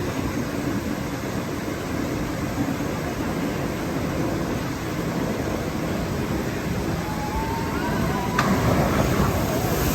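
Steady rushing noise of water at a log flume, growing louder about eight seconds in, with a single sharp click.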